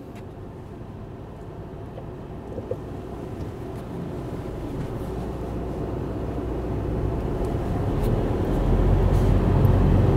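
Car engine and tyre noise heard from inside the cabin while driving, a steady low rumble that grows steadily louder.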